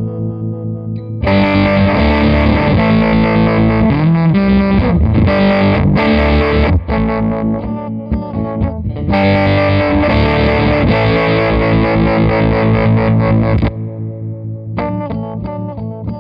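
Electric guitar played through a CopperSound Loma Prieta harmonic tremolo pedal with its Grit control off. Twice, about a second in and again about nine seconds in, holding the momentary Shift footswitch pins the grit to full, and the guitar jumps to a loud, heavily distorted sound for about five seconds before dropping back to the quieter, cleaner tone.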